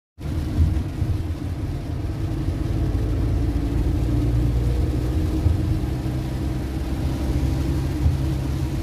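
Car driving on a wet road, heard from inside the cabin: a steady low rumble of engine and tyres, with a few brief knocks.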